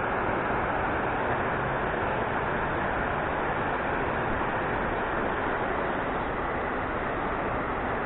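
Steady rushing of water pouring at a river dam: an even, unbroken hiss that holds the same level throughout.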